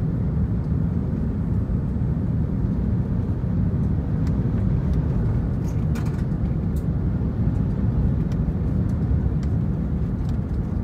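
Steady low rumble of an Airbus A380's four Rolls-Royce Trent 900 turbofans and rushing airflow, heard inside the cabin behind the wing during the climb after takeoff.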